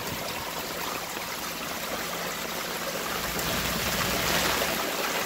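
Rainwater from a gutter downspout pipe pouring into a plastic sump basin: a steady splashing rush of water that swells louder about three and a half seconds in.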